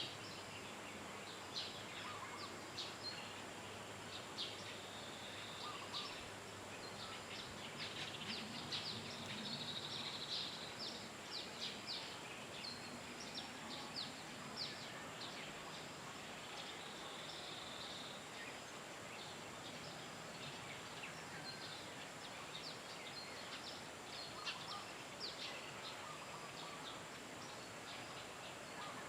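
Natural outdoor ambience: many short bird chirps scattered over a steady background hiss, with a constant thin high-pitched tone underneath.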